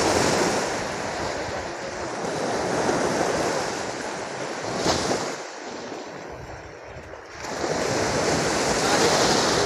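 Sea waves breaking on a beach, a steady rushing surf that swells and eases several times, loudest near the start and near the end.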